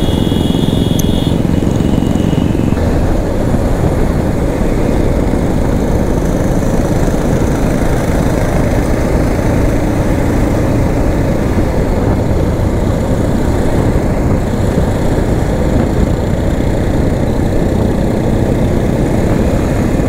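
Motorcycle engine running steadily with a dense low rushing noise throughout. A faint steady high tone sounds over the first couple of seconds, then stops.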